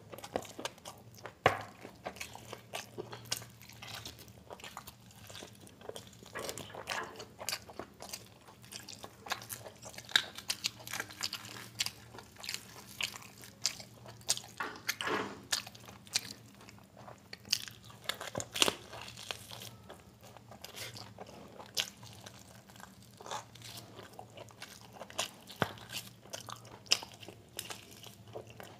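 Close-up eating sounds of mutton biryani and mutton curry eaten by hand: wet chewing, biting and lip smacks in an irregular run of short clicks, with one sharp louder click about a second and a half in.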